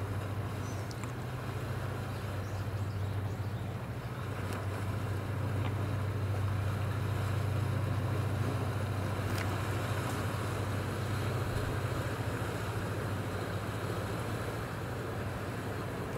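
A tugboat's diesel engine droning low and steady as it passes, with a wash of water noise; it swells a little toward the middle and eases off near the end.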